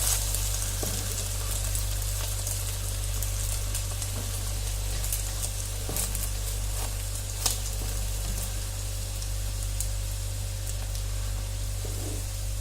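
French toast, egg-soaked bread slices, frying in a pan of hot sunflower oil: a steady sizzle with scattered crackles and pops, the sharpest about seven and a half seconds in.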